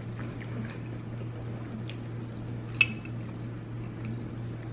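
Soft wet sounds of a spoon dribbling butter sauce over food, with one sharp click about three seconds in, over a low steady hum.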